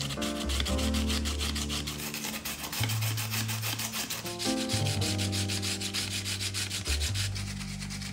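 A carrot being grated on a plastic julienne grater with metal blades, in quick, regular scraping strokes that thin out near the end, over background music.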